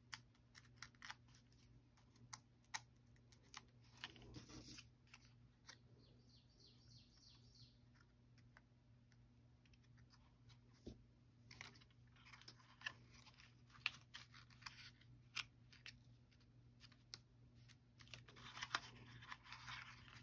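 Near silence with faint, scattered clicks, taps and paper rustling from handling cardstock, as card pieces are fitted together with foam adhesive dimensionals. A quick run of light ticks comes about six seconds in, and a short rustle near the end.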